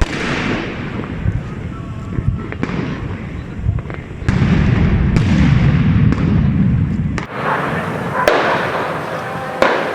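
Firecrackers and fireworks going off in a series of sharp bangs, each with an echoing tail, over a steady crackling rumble that swells for a few seconds in the middle.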